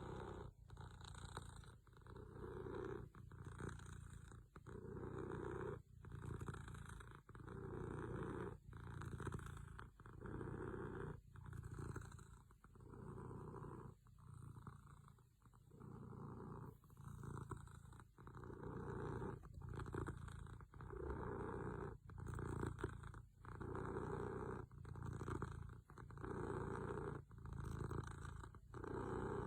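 Domestic cat purring, a low pulsing rumble that swells and dips with each breath, about one breath every second and a half.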